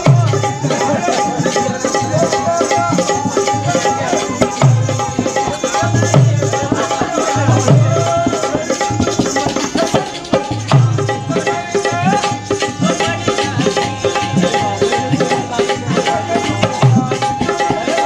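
Rajasthani folk music led by a hand-played dholak: quick, busy strikes with deep bass strokes every second or two, under a held melody line.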